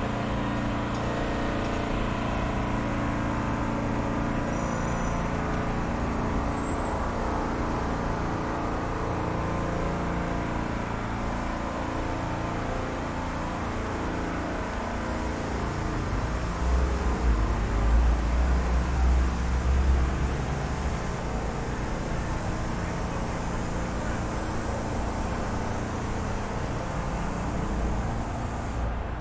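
City street traffic: cars running past steadily, with a louder, low-pitched heavy vehicle passing close a little past halfway.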